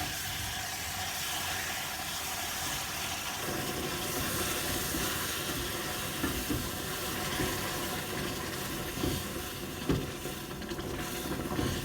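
Hot molasses syrup hissing and sizzling in a pot of butter-roasted flour as it is stirred in, with a few light knocks of the spoon against the pot in the second half.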